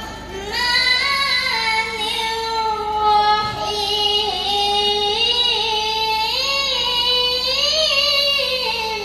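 A boy chanting the Quran in the melodic tilawah style: one long held phrase whose ornamented melody wavers up and down and climbs near the end.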